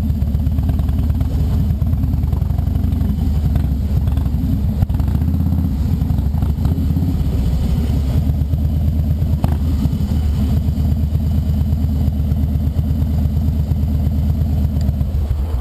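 Harley-Davidson V-twin motorcycle engine running steadily, a loud, fast, even low pulsing.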